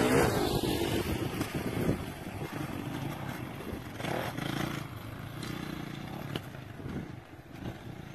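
Kawasaki motocross bike's engine revving up and down as it is ridden over the bumps and jumps of a dirt track. Loudest in the first two seconds, then fainter as the bike moves away.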